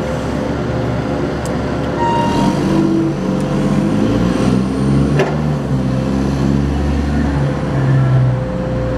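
Engines of heavy cargo-handling machinery running steadily during a crane lift, their note rising a little about two seconds in, with a sharp knock about five seconds in.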